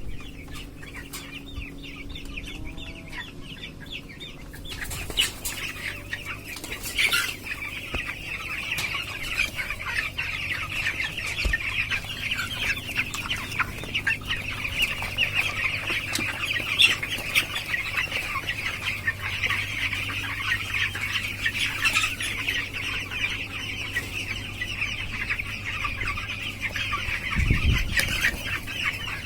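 A large flock of fifteen-day-old broiler chicks cheeping together in a dense, steady chatter that grows louder about five seconds in, over a low steady hum.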